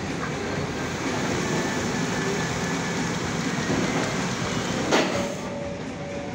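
Diesel engine of a loaded fuel tanker truck running hard as it labours on a muddy dirt road, its rear wheels churning up dust. A brief loud burst comes about five seconds in, after which the sound drops a little and settles into a steadier note.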